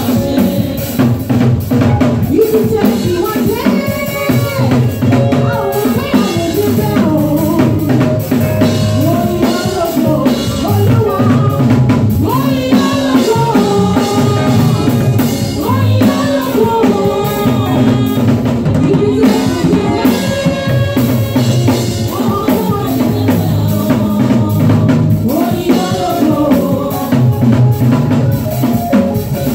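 Live band music with a drum kit played steadily throughout, its snare, bass drum and cymbals over sustained pitched instrument notes.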